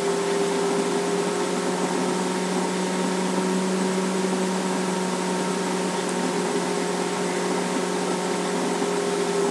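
A steady machine hum with a hiss, holding one even pitch and level throughout.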